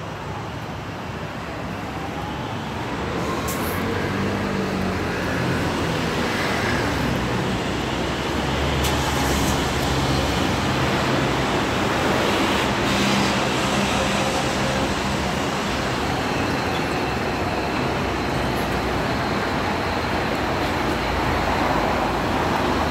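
Steady city road traffic of passing motor vehicles, growing louder over the first few seconds and then holding even.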